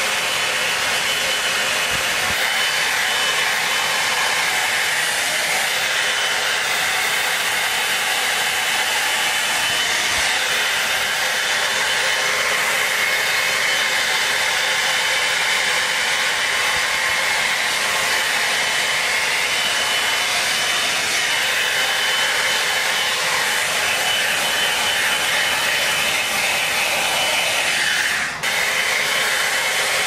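Dry Bar Double Shot Oval blow dryer brush running on hair: a steady rush of hot air with a thin high motor whine. The level dips briefly near the end.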